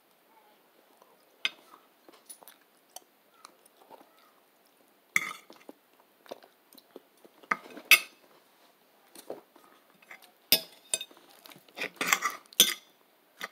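Sounds of eating a meal: scattered clinks and clatters of tableware being handled, with some chewing. The loudest clatters come about eight seconds in and in a cluster near the end.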